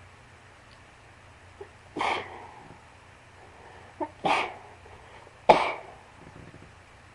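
A person sneezing three times in a row, each sneeze a short, sharp burst with a brief catch of breath just before it. The third sneeze is the loudest.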